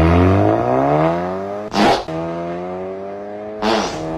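An Audi's engine making an unexpected, unusual sound: a revving tone that climbs in pitch over the first two seconds, then holds steady, broken by two brief rushes of noise, about two seconds in and near the end.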